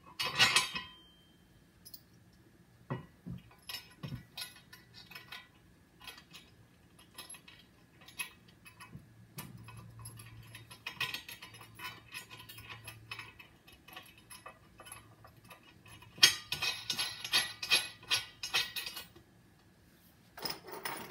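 Steel nuts, bolts and washers clinking and rattling against a hydraulic press's steel frame as they are fitted by hand: scattered light clicks, with two busier spells of rapid clinking in the middle and about three quarters of the way through.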